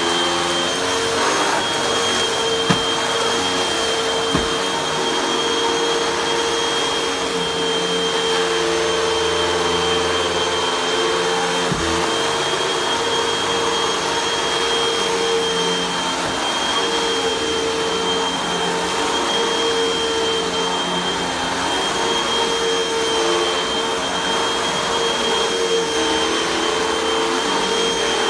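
Upright bagless vacuum cleaner running on carpet with its brushroll turning: a steady motor whine with a high tone above it. A few brief knocks stand out, the sharpest about three seconds in.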